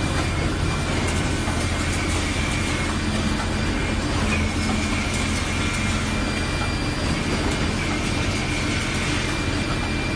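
Small toilet roll paper making production line running steadily: a continuous mechanical rumble with a low hum, a thin high whine and faint ticks.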